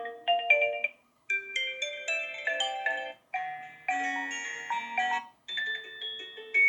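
Melodic alarm tones previewed through the OPPO Reno6 5G phone's speaker: short chiming, bell-like note phrases, broken by brief pauses about a second in and again near five and a half seconds.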